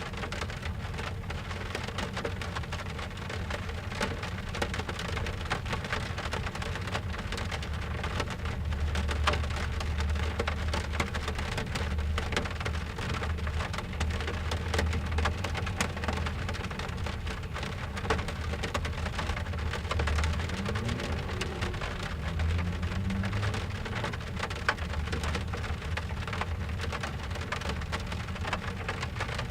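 Rain drumming on a car's roof and windows, heard from inside the cabin: a steady patter full of single drop hits. A low rumble underneath swells from about eight seconds in and fades around twenty seconds in, then briefly returns a little later.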